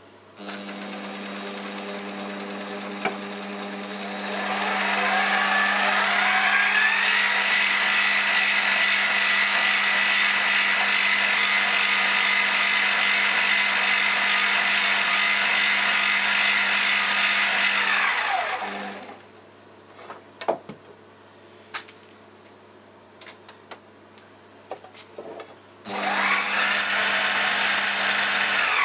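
Mini lathe's 550-watt motor and spindle running under speed control: it starts at low speed, ramps up over a few seconds to a steady high whine, runs for about eleven seconds, then winds down and stops. After a pause with a few clicks it starts again near the end and runs at speed.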